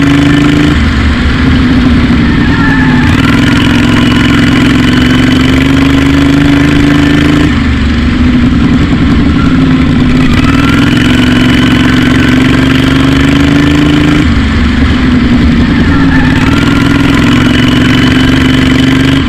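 Racing lawnmower engine running hard, heard from the driver's seat. Its pitch drops sharply about every seven seconds and climbs back as the mower laps the dirt oval.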